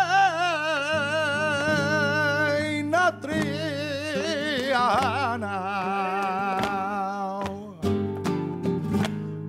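Flamenco soleá: a singer holds a long, wavering melismatic lament without words over guitar, in two phrases. Near the end the singing stops and the guitar continues alone with strummed chords.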